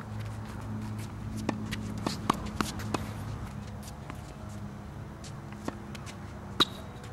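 Tennis play on a hard court: scattered sharp pops of the ball off racket strings and court, mixed with quick footsteps and shoe scuffs, the sharpest pop near the end. A steady low hum runs underneath.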